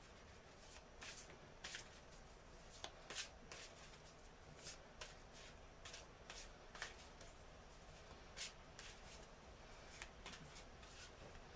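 A deck of Angel Power oracle cards being shuffled by hand: faint, irregular clicks and slaps of the cards.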